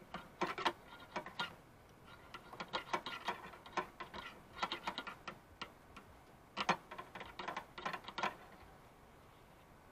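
Straightened coat-hanger wire clicking and scraping against metal inside an engine's spark plug well as it digs out stuck coil-boot rubber and black gunk. The light clicks come in irregular clusters and stop over a second before the end.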